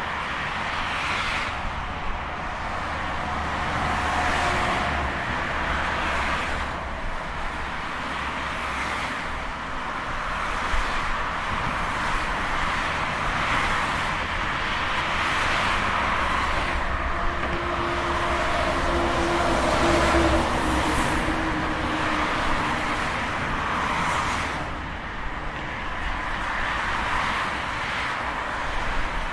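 Continuous highway traffic: car after car passing with tyre and engine noise swelling and fading every few seconds over a steady low rumble.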